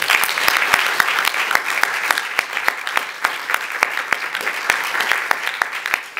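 Audience applauding, breaking out all at once and then clapping steadily, easing slightly near the end.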